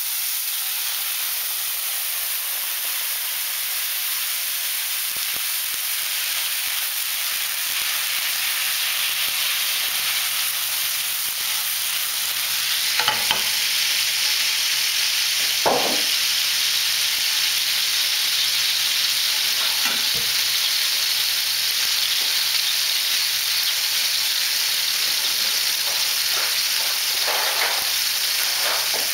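Floured sea bass fillets sizzling in hot oil and freshly poured white wine in a frying pan, a steady high hiss as the wine boils off. The sizzle grows louder a little before halfway, and a few light knocks come in the middle.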